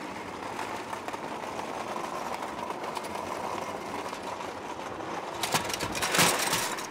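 A flat trolley loaded with stacked white chairs rolling over stone paving, its wheels and the chairs rattling steadily. Near the end the load tips, giving a louder burst of clattering.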